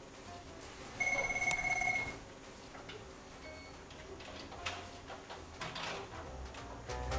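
Electronic beeping of a door access card reader: one long high beep about a second in, then a short beep about two and a half seconds later, followed by faint knocks and rustling.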